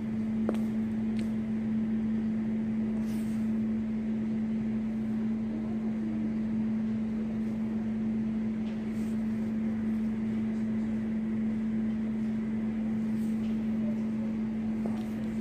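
A steady mechanical hum held at one constant low pitch, over a soft background hiss, with a few faint clicks.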